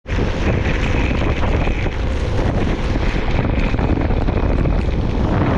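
Wind buffeting the microphone: a steady, loud rumble with a hiss over it.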